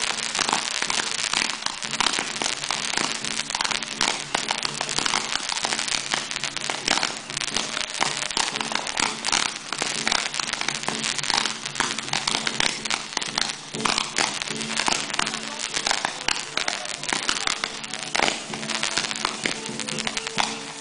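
Fireworks crackling and popping in a dense, continuous stream of small overlapping reports, with faint music underneath.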